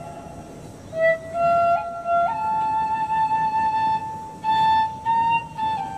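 Background music: a slow wind-instrument melody of long held notes that step up and down in pitch.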